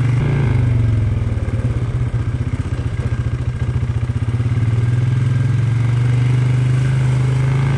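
Polaris ATV engine running on the move, a steady low pulsing drone that eases off briefly about two seconds in and picks back up.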